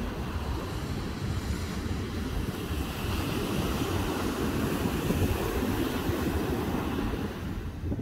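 Ocean surf breaking and washing onto a sandy beach, with wind rumbling on the microphone. The noise swells a few seconds in and eases near the end.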